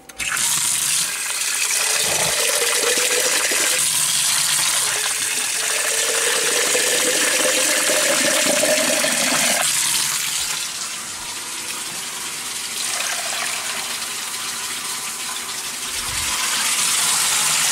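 Water from a kitchen tap running into a glass coffee-maker carafe, the pitch of the filling water rising as the carafe fills. About ten seconds in the sound drops to a quieter, steady rush.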